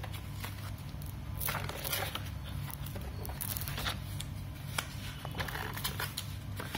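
Stiff wallpaper sample pages of a large catalogue being turned by hand, with short rustles and crackles of paper a few times, over a low steady hum.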